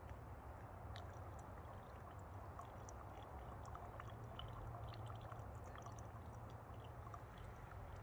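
Hot coffee trickling through a pour-over dripper into a mug, a faint steady pouring sound, with small scattered clicks and taps of the camp gear being handled.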